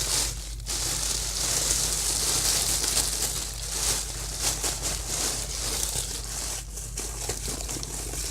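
Plastic wrapping crinkling and rustling continuously as it is handled.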